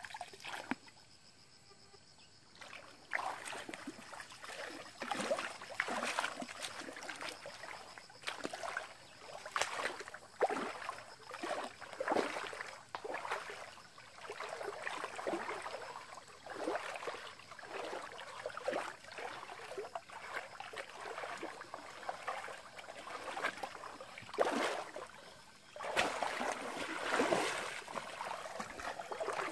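Feet wading through a shallow stream: water sloshing and splashing with each step, starting about three seconds in and getting louder and busier near the end.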